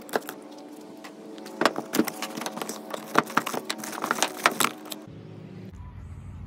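Cardboard box being opened by hand: a utility knife slitting the packing tape, then a quick run of sharp clicks, crackles and scrapes as the flaps are pulled open and the contents handled. Under it is a steady hum that stops about five seconds in.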